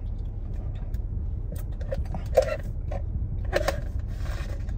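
Drinking through a plastic straw: a few short sips and gulps, the loudest about two and a half seconds in, with a brief hissy slurp near the end. Under it runs a steady low rumble inside the car.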